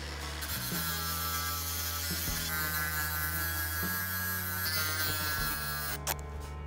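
Makita cordless angle grinder grinding a steel bar down, a steady motor hum with dense hissing grit noise, cutting off about six seconds in. Background music with slow chord changes runs underneath.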